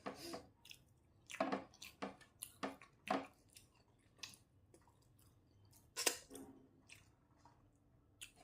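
Close-miked chewing and wet mouth sounds of someone eating a rice meal: irregular short smacks and clicks, clustered in the first three seconds and again about six seconds in.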